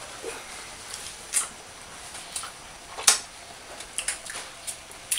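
Cream sauce with shrimp simmering in a frying pan, a steady hiss, with a few sharp clicks and taps of handling, the loudest about three seconds in.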